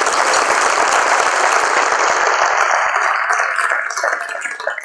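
Audience applauding steadily in a large hall, dying away near the end.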